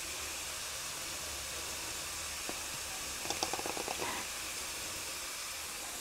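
Shredded chicken and grated carrot sizzling gently in a frying pan, a steady soft hiss. About three seconds in comes a quick run of small clicks as black pepper goes in.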